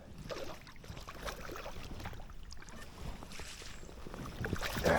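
Creek water splashing and sloshing as a hooked smallmouth bass is fought close in, with scattered small clicks and a louder splash-like burst near the end.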